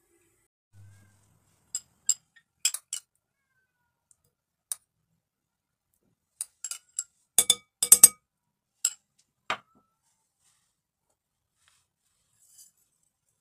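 Metal spoon clinking and tapping against a glass mixing bowl while butter is scraped onto boiled potatoes: a scattered series of short, sharp clinks, with a quick loud cluster about halfway through.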